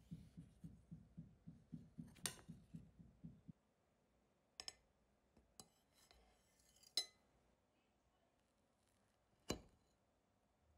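Faint kitchen handling sounds: a fast run of soft low thumps, about five a second, that stops about three and a half seconds in, then a few separate sharp clinks of cutlery or dishes.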